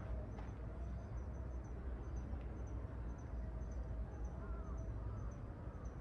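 Quiet outdoor ambience: a steady low rumble with faint, short, high chirps repeating about three times a second, and a couple of faint whistled notes a little over four seconds in.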